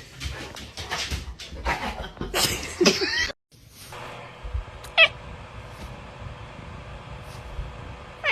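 Cat meowing and yowling: a run of loud, rough cries in the first three seconds, then, after a brief silence, two short meows several seconds apart over a faint steady hum.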